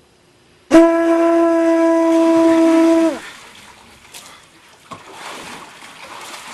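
Conch shell horn blown once: one loud steady note, held for about two and a half seconds, that sags in pitch as it dies away.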